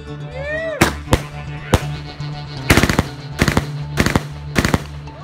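Aerial fireworks going off: a short rising whistle near the start, then a string of sharp bangs, several in quick clusters, as the shells burst. Music plays underneath.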